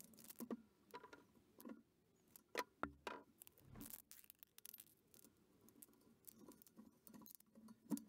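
Quiet rubbing and scattered clicks as yellow WTB tubeless rim tape is pressed into a mountain-bike rim bed and the spoked wheel is handled, with a few louder clicks near the middle.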